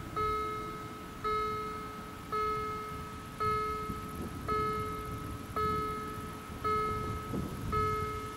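Level crossing warning bell striking about once a second, each ringing stroke fading before the next, over a low rumble. It is sounding with the barriers down, warning of an approaching train.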